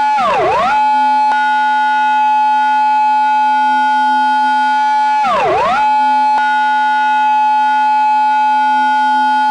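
Recreated Japanese police car siren in its intersection-entry pattern: a held high tone that twice dips sharply and swoops back up, about five seconds apart.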